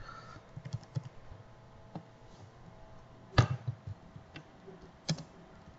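Computer keyboard keys clicking as a few keystrokes are typed, spaced out rather than in a steady run. The loudest is a sharp click about three and a half seconds in, with another near the end.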